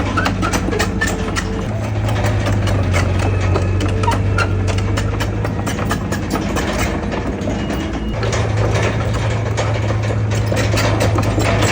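Heavy diesel engine of earthmoving machinery running steadily, its note stepping up slightly about two seconds in and again about eight seconds in, with frequent metallic clanks and rattles throughout.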